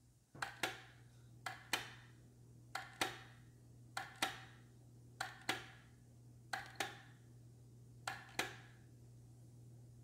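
Sharp double clicks on a plastic cordless electric kettle, one pair about every second and a quarter, each ringing briefly, over a steady low hum.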